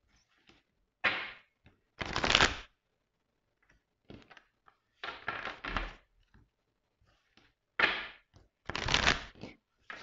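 A deck of oracle cards shuffled by hand, in a series of short rustling bursts about a second apart, the loudest about two seconds in.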